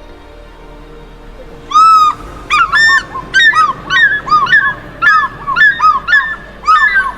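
A large bird calling: a loud series of short, arched calls in quick succession, starting about two seconds in, over faint background music.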